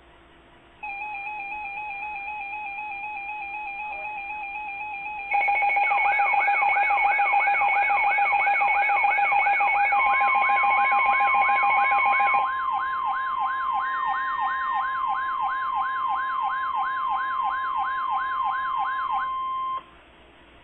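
Weather alert receivers sounding alarms. A wavering two-pitch beep-tone starts about a second in. About five seconds in it is joined by a louder siren-like tone sweeping up and down about three times a second. About ten seconds in a steady single tone starts, typical of the NOAA Weather Radio 1050 Hz warning alarm. All the tones cut off together near the end.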